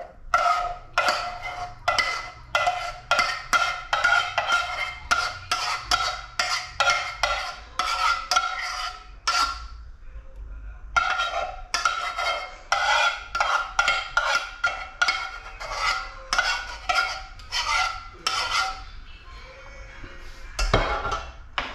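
Metal spoon stirring a thickening corn, milk and cornstarch pudding (maja blanca) in a cooking pot. It scrapes and clanks against the pot about two or three times a second, and the pot rings with each stroke. There is a short pause about ten seconds in and a louder knock near the end.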